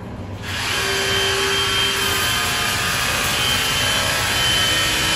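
Cordless 36-volt battery pressure washer running, its water jet hissing hard against a tiled wall from about 3 metres away; the loud spray noise comes on about half a second in and holds steady over the pump's low hum.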